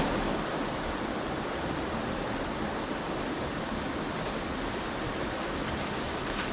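Steady rush of a waterfall: an even, unbroken noise of falling water.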